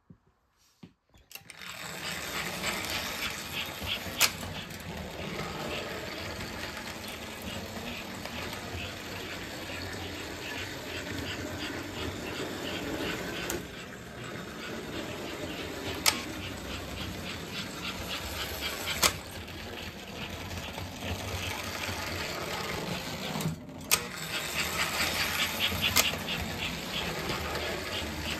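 Two American Flyer S gauge model steam trains start up about a second and a half in and run around the layout: a steady mechanical rattle of motors and wheels on the track, with a few sharp clicks.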